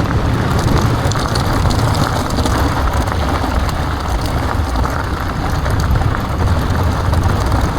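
Steady rush of wind over the microphone mixed with the rumble and chatter of bike tyres rolling over a rough, steep trail on an e-mountain-bike descending under braking.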